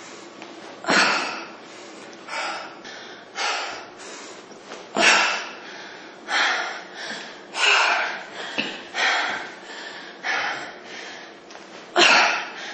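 A woman's short, forceful exhales during exercise, about one every second and a quarter, keeping time with her repetitions.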